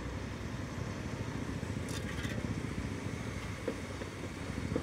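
Mobile crane's diesel engine running steadily with a low, rough rumble while it works the boom. A faint short scrape comes about two seconds in.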